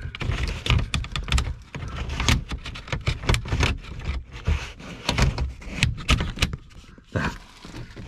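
Irregular rustling, scraping and clicks as a pleated windscreen cab blind is drawn across on its rail, mixed with fingers rubbing and knocking on the handheld camera close to the microphone.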